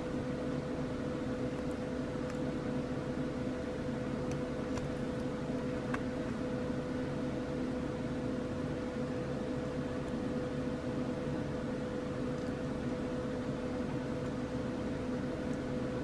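Steady machine hum with a fixed tone, like a fan or small appliance running, and a few faint light clicks over it.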